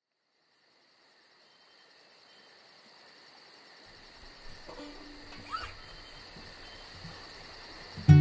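Evening chorus of crickets chirping in steady high trills, fading in from silence, with a few faint short chirps about five seconds in. Music starts with a loud low note near the end.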